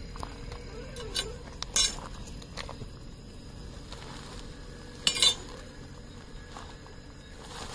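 A few sharp clinks of a metal snake hook knocking against gravel while a woven plastic sack is handled and opened, the loudest a quick double clink about five seconds in.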